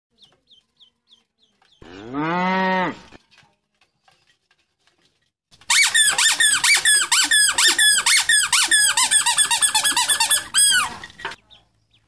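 Faint duckling peeps, then a toy cow's moo lasting about a second. About five and a half seconds in, a squeaky cow toy starts squeaking rapidly and loudly, several squeaks a second, for nearly six seconds before it stops.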